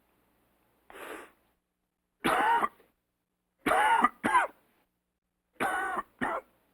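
A person coughing in a series of separate coughs with silence between them. A faint, breathy cough comes about a second in, then a single louder cough, then two double coughs near the end, each a longer cough followed by a quick shorter one.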